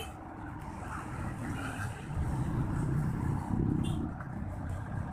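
Low rumble of a motor vehicle's engine, growing louder about two seconds in and easing off toward the end.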